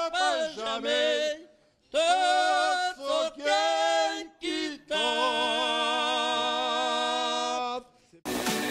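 Men singing together unaccompanied, in short phrases broken by pauses, then one long held note about five seconds in. Near the end the singing cuts off and electronic music starts.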